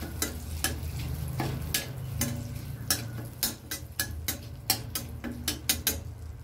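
Flat metal spatula scraping and clinking against an aluminium kadai, about three strokes a second and quicker near the end, stirring bay leaves and cardamom frying in a little ghee with a faint sizzle. A low steady hum runs underneath.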